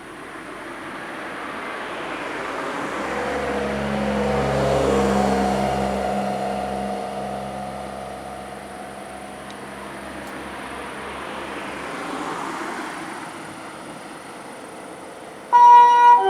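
A road vehicle passing by: engine and tyre noise that swells to a peak about five seconds in and fades, with a smaller swell later. Just before the end, an ambulance's harmonic siren starts loudly in stepped tones.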